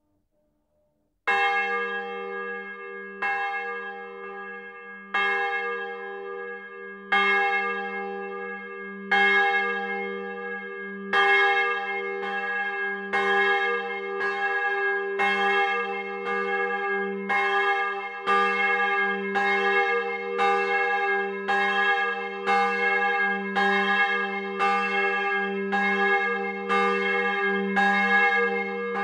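A bronze church bell swung in its timber belfry and heard close up, starting to ring about a second in. The clapper strikes about every two seconds at first, then about once a second as the swing builds, each strike ringing on into the next.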